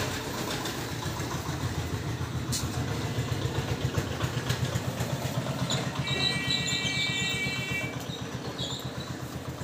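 An engine running at idle, a low uneven rumble. About two-thirds of the way through, a steady high-pitched tone sounds for about two seconds.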